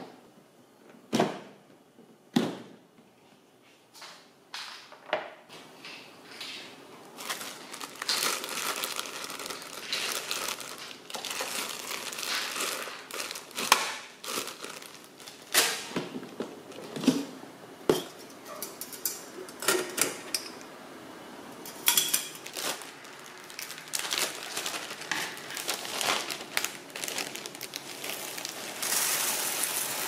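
Hard plastic storage box being opened by hand: a few sharp clicks and knocks of its latches and lid, then the crinkling of a zip-lock plastic bag of green coffee beans among more knocks of plastic. Near the end, green coffee beans poured from the bag into a metal mesh strainer, a dense rattle.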